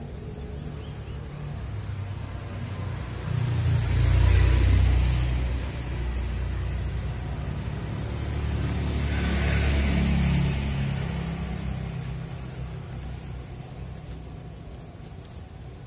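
Road vehicles passing by, a low engine rumble with tyre noise that swells and fades twice, the first pass the louder.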